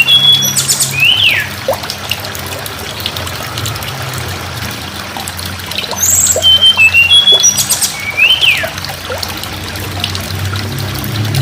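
Tledekan gunung singing: a phrase of short, high whistled notes and a quick sweeping note, given twice about six seconds apart, over a steady trickling background.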